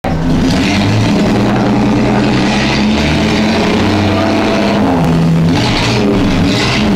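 Chevrolet Opala's inline six-cylinder engine running loud and being revved, its pitch stepping up and down a few times.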